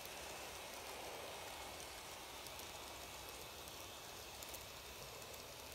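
Faint running noise of two N gauge model trains, a 500 series Shinkansen and a 251 series Super View Odoriko, on sectional track: a steady light whirring hiss, a little louder in the first two seconds as they pass each other, with a few faint ticks.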